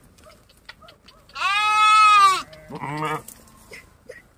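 Bleating from the passing herd of sheep and goats: one long, loud bleat about a second and a half in, followed at once by a shorter, wavering one.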